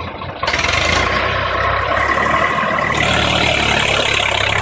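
Swaraj 855 FE 55 hp tractor's diesel engine running under heavy load as it hauls a fully loaded sugarcane trolley. About half a second in, the engine gets louder and harsher and then holds steady.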